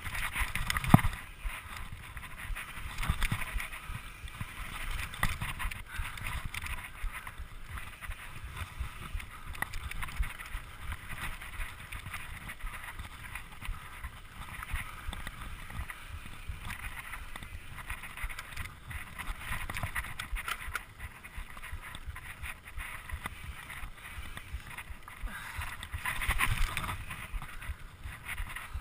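Mountain bike riding fast on a dirt singletrack: tyres running over the dirt and the bike rattling and clicking over bumps and roots, with wind on the microphone. A sharp knock about a second in.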